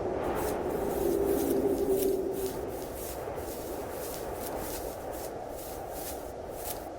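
Footsteps in snow, about two to three steps a second, over a steady rush of wind.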